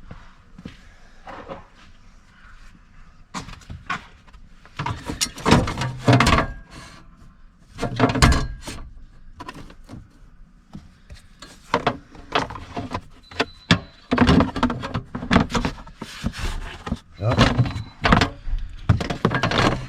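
Repeated thunks, knocks and clatter of a battery cover being handled and fitted back in place under a van seat, in irregular bursts.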